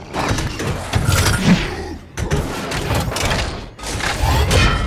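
Film fight sound effects of the Hulk grappling with the Hulkbuster armour: a run of heavy thuds, crashes and booming impacts, with gritty scraping near the end as the armour is dragged along the pavement.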